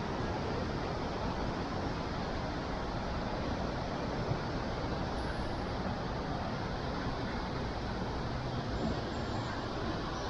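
Steady rushing roar of a waterfall's falling water, even and unbroken.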